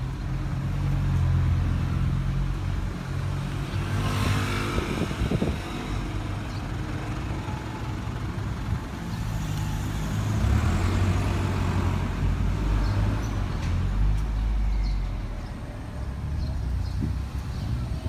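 Road traffic: motor vehicle engines running and tyres rolling in a steady low rumble, with a vehicle passing close by about four seconds in and again about ten seconds in.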